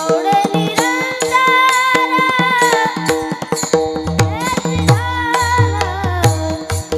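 A boy singing a melody with long held notes that slide between pitches, over a steady drone, accompanied by pakhawaj drum strokes, including deep bass strokes.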